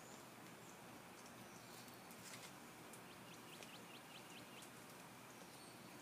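Near silence with faint outdoor hiss. From about two and a half seconds in, a small bird gives a quick run of faint, short high chirps, about four a second, for roughly two seconds.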